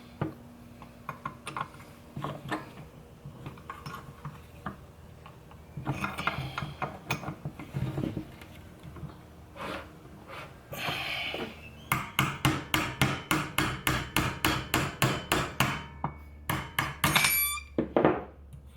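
Metal hand tools working on steering column parts: scattered clicks and scraping, then a quick run of sharp taps, about five a second, lasting some four seconds, like a hammer tapping on metal.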